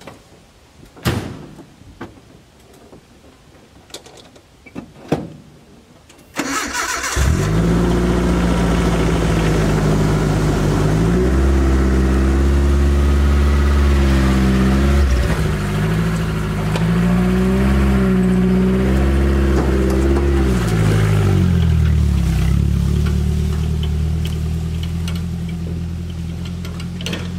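Nissan Hardbody pickup: a few knocks and clicks from the cab, then about six seconds in the engine cranks and starts. It revs up and down twice, then settles into a steady run that fades as the truck drives away.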